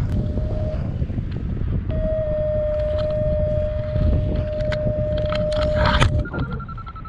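Wind rushing over the camera microphone in paraglider flight, with a variometer sounding. A steady low tone runs from about two seconds in to about six seconds, then turns into fast beeping at a higher pitch that slowly falls. The steady tone is a sink alarm and the beeps signal climbing. A loud rustling burst comes just before the change.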